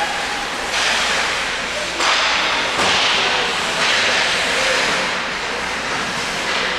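Hockey skate blades scraping across the ice in several long hissing strokes, each starting sharply and then fading.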